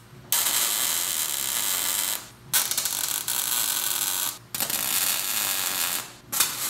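Millermatic 252 MIG welder's arc crackling in a series of short tack welds on a steel axle gusset: four bursts of about one and a half to two seconds each, with brief pauses between, the last starting near the end.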